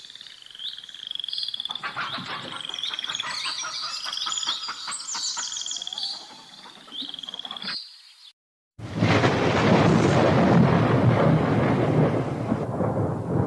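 Songbirds trilling over frogs croaking in rapid pulses. After a brief silence about eight seconds in, the sound cuts to loud steady rain with a low rumble of thunder.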